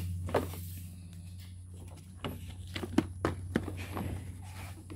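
Irregular plastic clicks and knocks from a Honda Spacy's speedometer housing and glass being pressed and snapped into their retaining clips.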